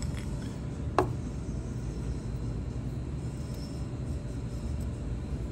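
Steady low rumble of background noise, with one sharp click about a second in.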